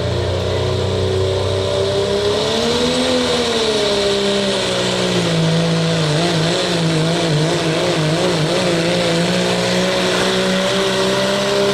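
Diesel pickup truck's engine running hard at high revs while pulling a weight-transfer sled. Its pitch swells and dips, then wavers unsteadily as the truck works against the sled.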